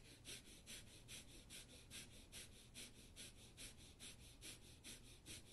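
Breath of fire: fast, even, forceful exhales through the nose, about four or five a second, faint.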